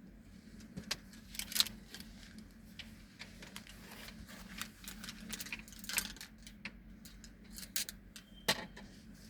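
Irregular light clicks and clinks of small hard objects being handled, the loudest about a second and a half in, again around six seconds and near the end, over a steady low hum.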